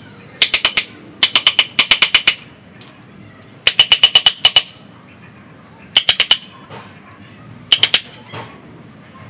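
Wooden mallet tapping a carving chisel into the trunk of a Nam Dien ficus bonsai, carving the wood. The taps come in six quick bursts of about four to eight strikes each, around eight strikes a second, each a sharp click with a ringing note.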